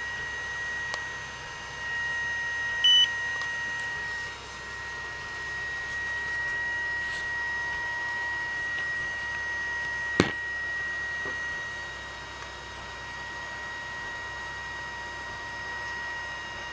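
Handheld spot welder giving a steady high whine, with one short beep about three seconds in and a single sharp snap about ten seconds in, the snap typical of a weld pulse discharging.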